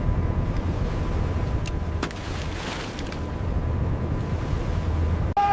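Steady low rumble of a crab fishing boat's engine and deck machinery, with a few light knocks about two seconds in.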